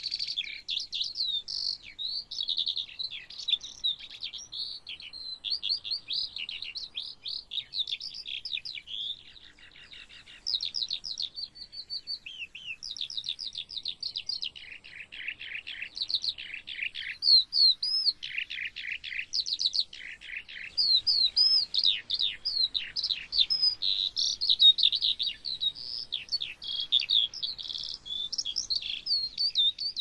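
Lark singing a long, fast, unbroken run of high chirps and trills, with one short pause about ten seconds in.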